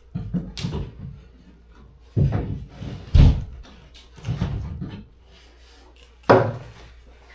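Heavy thuds and knocks of interior demolition: building material being struck and falling, about five impacts. The loudest comes a little past three seconds in, with a sharp knock near the end.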